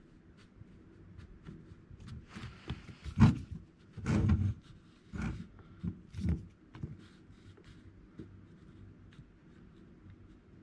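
Handling noise as a metal shaft tube is twisted and pushed inside a plastic hedge trimmer attachment housing to line up its bolt hole: a few short knocks and scrapes, the loudest about three and four seconds in, then only faint rubbing.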